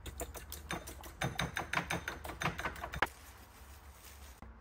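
A spoon clinking rapidly against a ceramic bowl while egg and spices are whisked in it, stopping about three seconds in.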